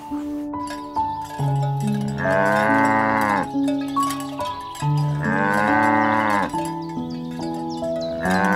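A cow mooing: two long calls, each rising then falling in pitch, and a third starting near the end, about three seconds apart. Light background music of stepped, plucked notes plays under them.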